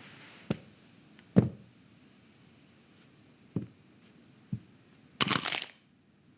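Animated-film foley: four short knocks or thumps spaced irregularly, the second the loudest, then a brief half-second rustle near the end.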